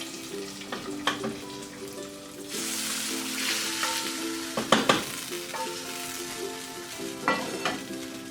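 Hot ghee tempering with ginger, cashews and curry leaves poured into cooked ven pongal, sizzling for about two seconds starting a third of the way in, with a few sharp knocks of the pan and spoon, the loudest about halfway through.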